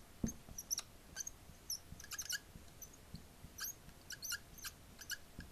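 Dry-erase marker squeaking on a whiteboard as words are written: a faint run of short, high squeaks, one stroke after another with brief pauses between.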